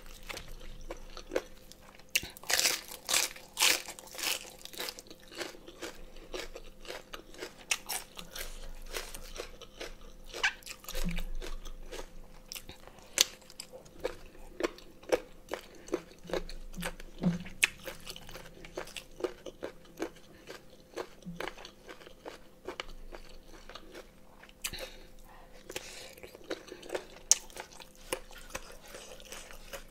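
Close-miked crunchy chewing and biting of raw cabbage leaves dipped in chili sauce, with dense crisp crackles and mouth clicks. The loudest run of crunches comes a couple of seconds in.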